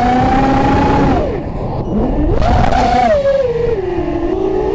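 FPV racing quadcopter's motors whining, the pitch swooping with the throttle: it falls steeply about a second in, sweeps back up about two seconds in, then wavers and settles lower, as in a power loop or roll.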